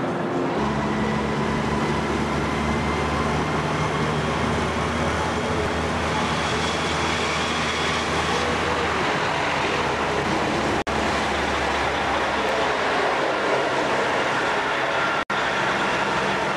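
Steady rumble and hum of a vehicle running, heard from inside it. The sound cuts out for an instant twice, about eleven and fifteen seconds in.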